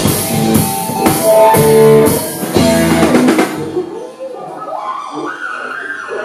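Live three-piece rock band playing loudly on drum kit, electric guitar and bass, stopping about three and a half seconds in. Voices follow.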